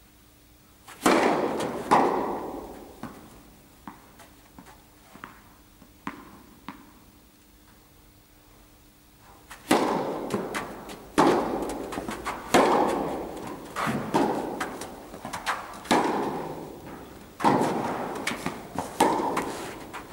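Tennis ball struck by rackets, ringing off the walls of an indoor tennis hall: a serve about a second in and the return just after, a few light ball bounces and footsteps, then from about ten seconds in a rally with a hit roughly every second and a half.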